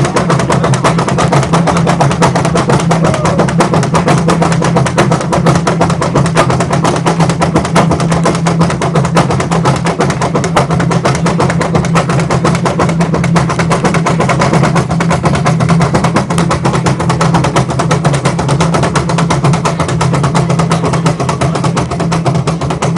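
Afro-Paraguayan Kamba Cua hand drums played loud and fast in a dense, unbroken rhythm, the strokes following each other without pause.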